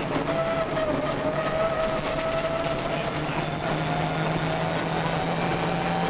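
Subaru Impreza 555 rally car's turbocharged flat-four engine pulling at a fairly even pitch, heard from inside the cabin. A few sharp clicks and knocks from the rough road surface sound over it.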